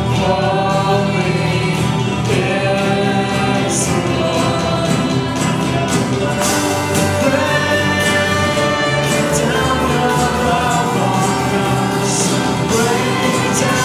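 Youth praise team singing a worship song together, backed by instruments.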